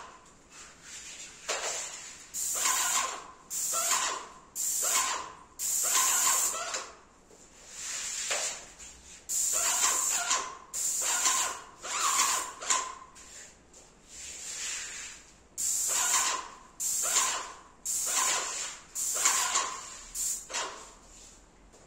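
Airless paint spray gun spraying paint onto a ceiling in short bursts: a hiss that switches on and off with each trigger pull, over a dozen bursts of a second or less.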